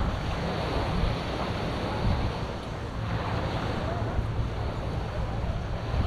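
Wind buffeting the microphone over a steady wash of surf, with faint voices of people around.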